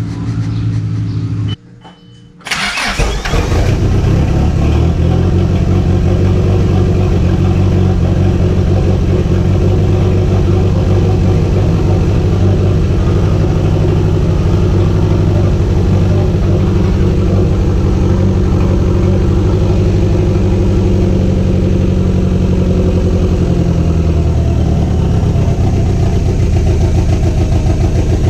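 Chrysler Conquest's Mitsubishi G54B turbocharged four-cylinder engine starting about two seconds in, then running steadily, with its note shifting near the end.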